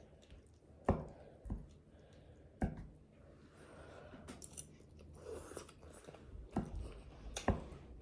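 Close-up mukbang eating sounds: biting into and chewing fried chicken wings, with several sharp crunches and mouth smacks spaced a second or more apart.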